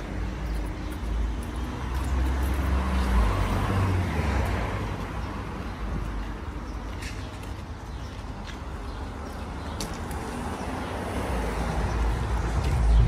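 Street traffic: vehicles passing on a city street over a steady low rumble, swelling about three seconds in and again near the end.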